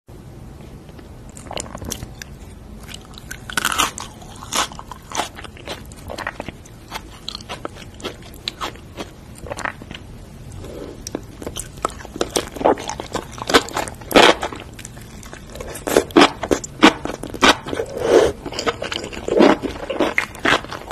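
Close-miked eating of sauce-coated noodles and sliced chili peppers: irregular bites, crunches and wet chewing, growing louder and denser in the second half.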